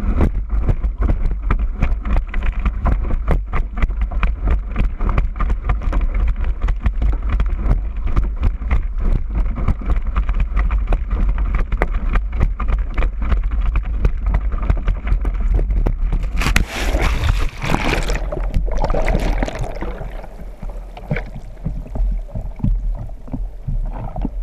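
Wind buffeting a board-mounted action camera's microphone and water rushing under a kitesurf board at speed. About two-thirds of the way in comes a loud splash, after which the sound is duller and quieter, with a gurgling of water.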